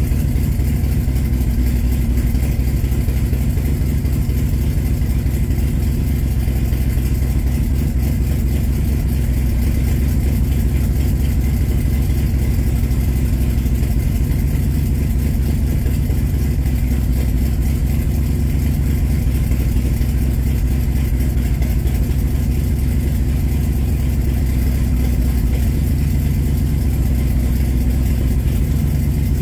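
A Ford V8 fitted with Holley Sniper EFI, in a Factory Five Cobra roadster, idling steadily.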